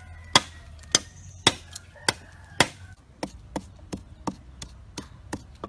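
Repeated sharp chopping strikes, just under two a second at first, then quicker and lighter at about three a second from about three seconds in.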